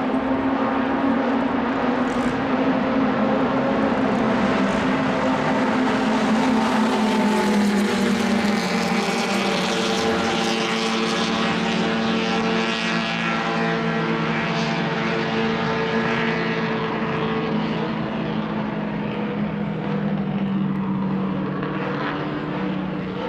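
1960s racing car engine running continuously at speed. Its note sounds sharper around the middle and its pitch slowly drops across the stretch.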